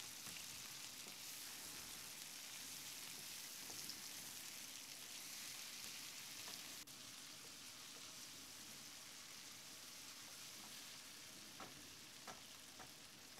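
Lamb liver and chopped spring onions sizzling faintly in hot oil in a non-stick pan while being stirred with a wooden spatula, with a few light taps near the end.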